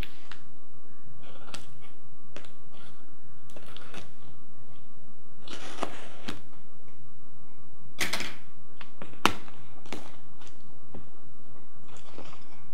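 A cardboard shipping box being cut open with scissors and its flaps pulled back: scattered scrapes, clicks and rustles of cardboard and paper, with a sharp click about nine seconds in. A faint steady air-conditioner hum runs underneath.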